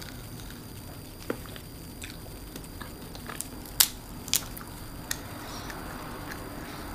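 Close-miked eating of boiled shellfish: a handful of sharp cracks and clicks of shells being broken and peeled, the two loudest just past the middle about half a second apart, with quiet chewing between.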